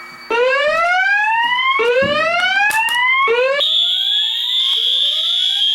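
Fire alarm devices sounding: a loud rising whoop tone, one sweep about every one and a half seconds, joined about three and a half seconds in by a steady high-pitched alarm tone that becomes the loudest sound while the whoops carry on beneath it.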